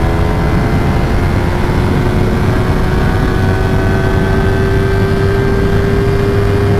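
Yamaha R3 parallel-twin engine pulling hard at high revs at highway speed, its pitch creeping slowly up as the bike accelerates, over a steady rush of wind and road noise.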